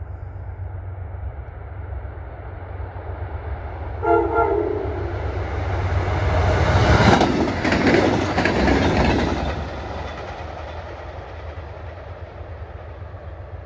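Train sounding one short horn blast, then passing close by with wheels clacking over the rail joints, the noise swelling to a peak and fading away.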